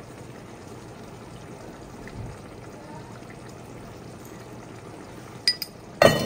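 Pot of yams boiling in water, a steady bubbling hiss. Two sharp metallic clinks come about five and a half seconds in, then a louder clatter at the very end.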